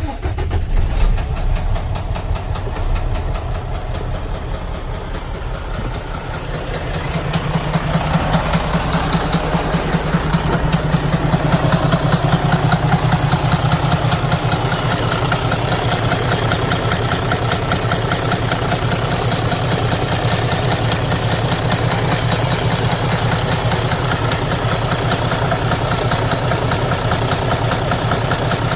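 Detroit Diesel DD13 inline-six diesel engine running with a very low knocking sound from inside the engine, a sign of internal damage that needs the engine opened to find. It grows louder about seven seconds in, then holds steady.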